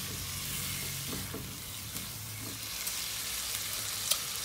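Pork belly and chili paste stir-frying in a pan over high heat: a steady sizzle with a spatula stirring and scraping, and a sharp clink near the end.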